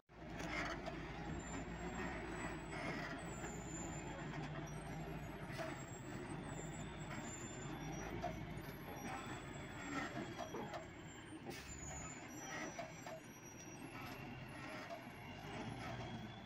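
Log truck's engine running at low speed as the loaded truck creeps down a steep, rough dirt track, with knocks and rattles from the truck and its load over the ruts and a few short high squeals.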